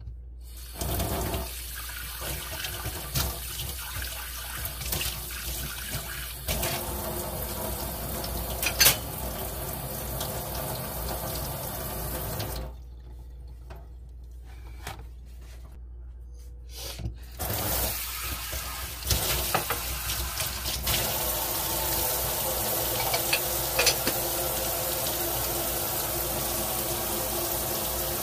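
Kitchen faucet running into a stainless steel sink while a ceramic cat food bowl is washed, with occasional clinks and knocks; the water stops for a few seconds near the middle and then runs steadily.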